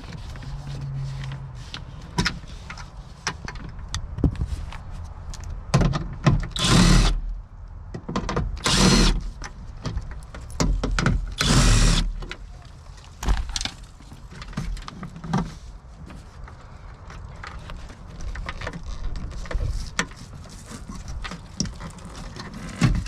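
Hands-on work at a truck door speaker: scattered clicks, knocks and plastic handling, with three short, louder rasping bursts about 7, 9 and 12 seconds in.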